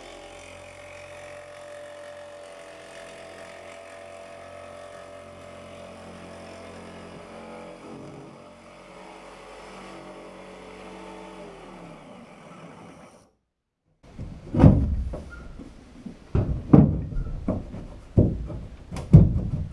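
Electric jigsaw running steadily while cutting the boat's wooden bulkhead, its motor winding down and stopping about twelve seconds in. After a short gap, a series of loud knocks.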